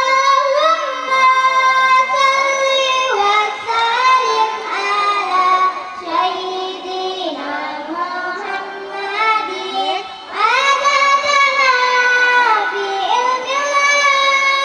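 A young girl singing a sholawat solo into a microphone, in long held notes that slide and bend between pitches.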